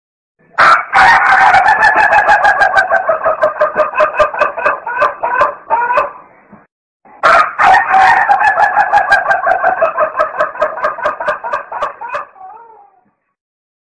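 Chicken calls: two long runs of rapid, pulsing clucking, each about five or six seconds, split by a brief gap about six seconds in.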